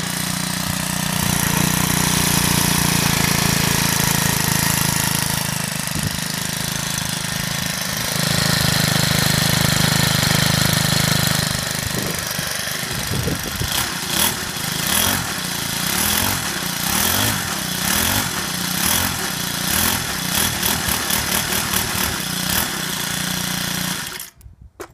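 Troy-Bilt lawn edger's small gas engine running after a cold start: steady for about the first half, then its speed rising and falling unevenly, before it cuts off suddenly near the end.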